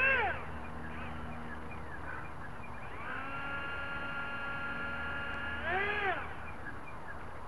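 A short call that rises then falls in pitch, like an animal's honk, at the start and again about six seconds in, over a steady low hum. A steady whine holds from about three seconds in until just before the second call.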